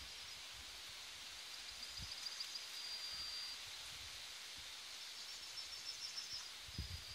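Quiet open-air ambience: a steady hiss with faint, high chirping trills that come and go, and a few soft low thumps.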